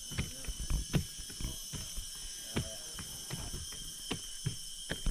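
Irregular knocking footsteps, roughly two a second, over a steady high-pitched drone of rainforest insects.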